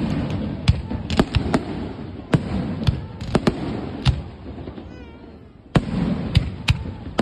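Aerial fireworks display: shells bursting one after another in sharp bangs over a low rumble. The bangs come thick and fast, let up about five seconds in, then start again near the end.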